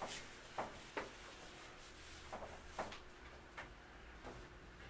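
Whiteboard eraser wiping marker drawings off a whiteboard: about seven brief, faint rubbing strokes.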